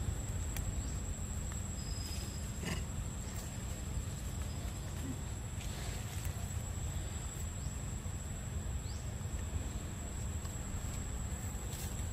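Outdoor forest ambience: an insect trilling on one steady high note, over a constant low rumble, with a few faint clicks.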